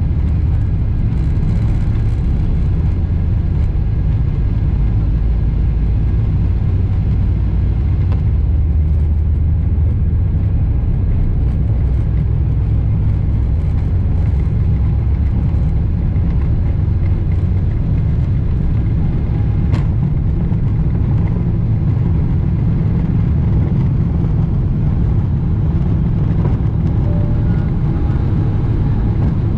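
Steady low rumble of a Boeing 777-300ER heard from inside the passenger cabin, from its GE90 engines and the airflow over the airframe, with one brief click about two-thirds of the way through.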